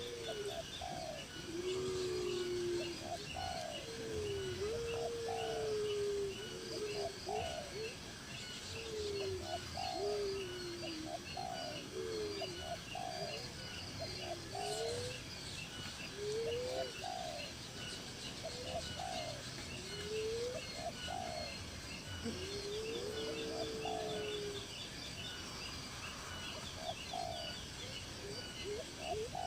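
Birds calling: low cooing calls repeated about once a second, over steady high-pitched chirping.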